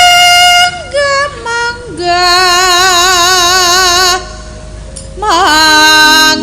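A sinden, a Javanese female singer, sings a slow song in long held notes with a wavering vibrato, stepping from pitch to pitch. She breaks off for about a second midway, then comes back in with a sliding, quavering note.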